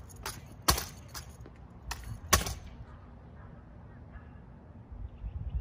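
Sharp knocks of drill rifles being slapped, caught and handled in tandem exhibition rifle drill: about five in the first two and a half seconds, the loudest about two-thirds of a second in and again near two and a half seconds in. After that only a low rumble.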